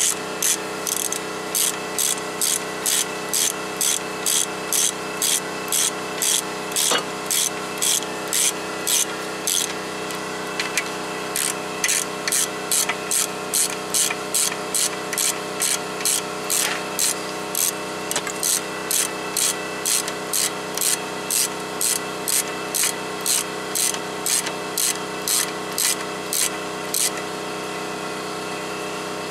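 Rhythmic scraping strokes, about two a second, over a steady motor hum; the strokes pause briefly about ten seconds in and stop a couple of seconds before the end.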